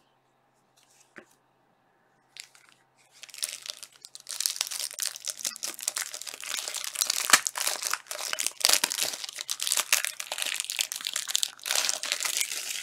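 Plastic wrapper of a trading-card pack being crinkled and torn open by hand: a dense crackling that starts about three seconds in, after a few faint clicks.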